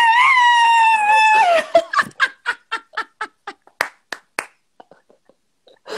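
A woman imitating a rooster's crow: the cock-a-doodle-doo ends in a long, high, held note that falls off about one and a half seconds in. It is followed by a run of hand claps, about four a second, with some laughter.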